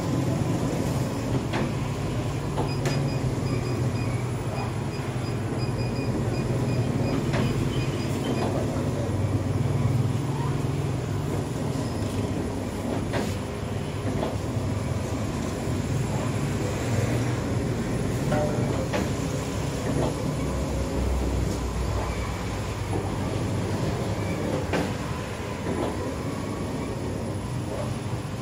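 Bakery dough divider machine running, dropping dough pieces onto a flour-covered table: a steady low rumble with occasional knocks.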